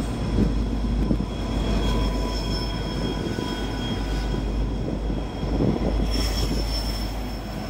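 Freight train passing close below: tank cars rolling, then Norfolk Southern diesel locomotives going by underneath with a steady heavy rumble of wheels and engines. A thin, steady high-pitched whine rides over the rumble.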